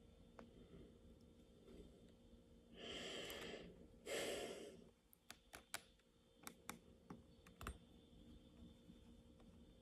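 A person's breathing close to the microphone: two heavy breaths a little under a second apart, the second louder. Then a run of about seven short, sharp clicks from the metal suturing instruments as they are handled.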